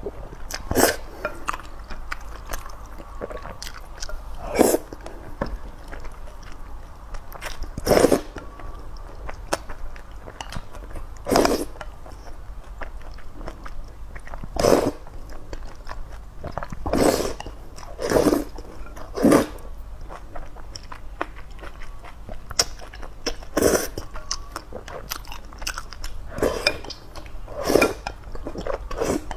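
Close-miked slurping of thick oil noodles in chili-oil sauce, with chewing in between. About a dozen short, loud slurps come at irregular intervals a few seconds apart.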